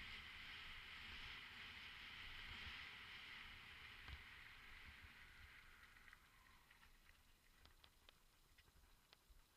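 Mountain bike riding downhill: a faint, steady hiss of tyres and wind with low knocks from the trail, fading away after about six seconds, then a few faint clicks.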